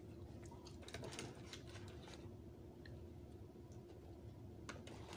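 Faint eating sounds: scattered soft clicks and crunches of chewing and handling a sandwich and fries, bunched in the first half and again near the end, over a steady low hum.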